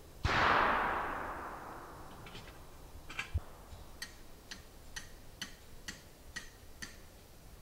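A distant gunshot, most likely a black-powder muzzleloader rifle, cracks once and echoes away through the forest over about two seconds. It is followed by a steady run of short, sharp ticks, about two a second.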